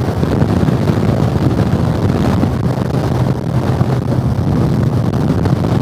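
Wind rushing over a helmet-mounted microphone while riding a motorcycle, over the steady low hum of the bike's engine.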